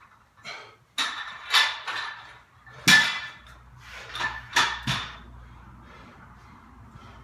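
Loaded barbell brought down from overhead and set on the floor, with a series of clanks and knocks from the bar and weight plates. The loudest is a heavy thud about three seconds in as it lands, followed by a few lighter knocks before it settles.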